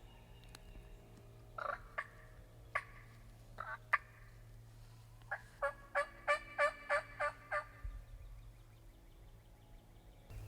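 Turkey calling: a few short calls in the first half, then a run of about eight evenly spaced notes, roughly three or four a second.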